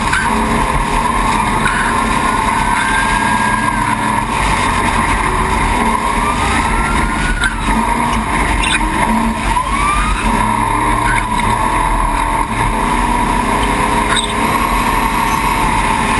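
Off-road race truck running at speed: a steady, loud roar of engine and rough-terrain noise, with a few sharp knocks.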